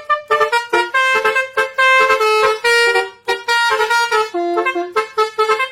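Bus telolet horn, a multi-tone air horn, playing a fast melody of short notes.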